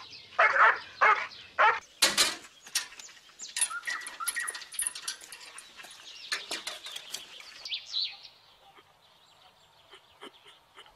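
A dog barking repeatedly, about one bark every half-second. About two seconds in, a loud burst is followed by a busy flurry of bird chirps and fluttering that stops about eight seconds in, leaving only faint background.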